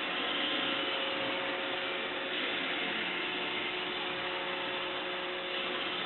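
Roomba robot vacuum running steadily, a constant whirring of its vacuum motor and brushes with a couple of steady hum tones. It is stuck turning in small circles instead of cleaning in its normal pattern, which the owner takes for a fault in its navigation.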